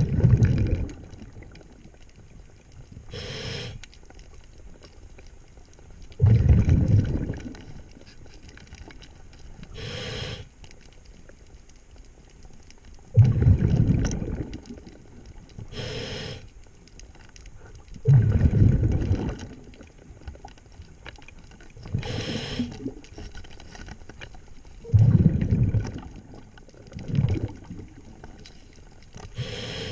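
Scuba diver breathing through a regulator underwater: a short hiss on each inhale, then a loud burst of exhaust bubbles on each exhale, about one breath every six to seven seconds.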